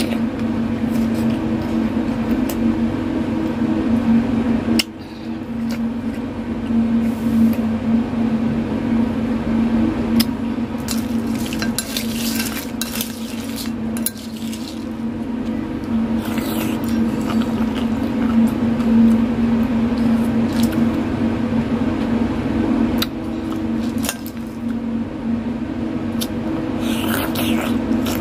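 Metal spoon clinking and scraping among ice cubes in a ceramic bowl, with sharp clicks and a few longer crunching, scraping stretches, over a steady low hum.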